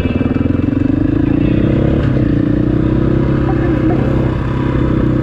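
KTM 500 supermoto's single-cylinder four-stroke engine running under way, its revs rising and falling a little with the throttle.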